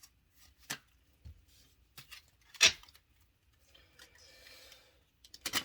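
Tarot cards being handled and turned over on a table: a few separate light taps and clicks, the loudest about two and a half seconds in, a soft brushing of cards near four seconds, and a quick run of clicks at the end.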